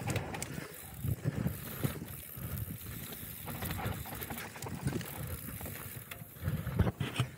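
Mountain bike ridden fast downhill over dry dirt and grass: tyres rumbling over bumps with knocks and rattles from the bike, and wind on the microphone.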